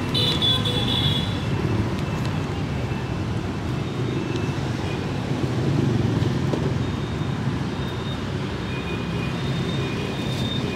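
Steady street traffic noise, mostly motorbikes passing on a busy road.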